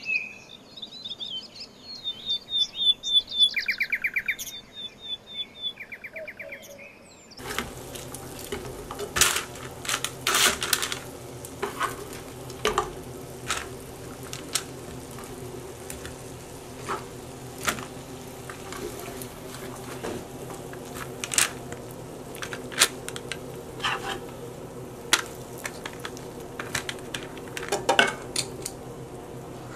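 A small bird chirps and trills for about the first seven seconds. Then a wooden spoon scrapes and knocks against a skillet in quick irregular clicks over a faint sizzle as sauced fried chicken wings are lifted out of the pan onto paper.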